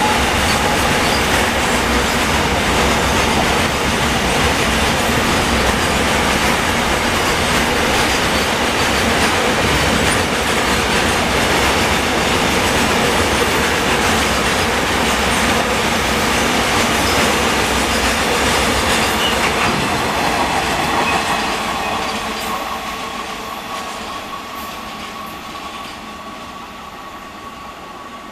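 Freight train of loaded container wagons running through at speed: a steady, loud rumble of wagon wheels on the rails, dying away over the last seven seconds or so as the end of the train passes and recedes.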